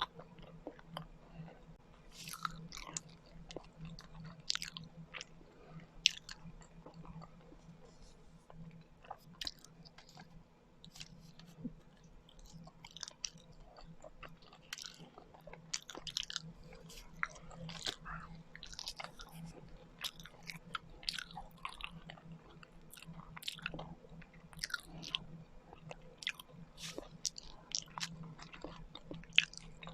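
Close-miked chewing and mouth sounds of someone eating kakanin, Filipino glutinous rice cakes: irregular short wet clicks and smacks, many to the second, over a faint steady low hum.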